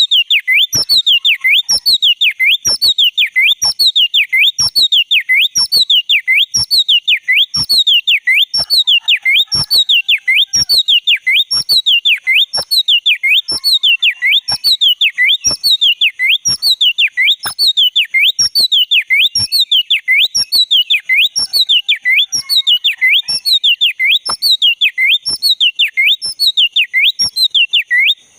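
Oriental magpie-robin (black-breasted kacer) singing one loud, sweeping whistled phrase over and over, about once a second, each falling and rising in pitch with a sharp click. It is a lure recording for getting a silent kacer to sing.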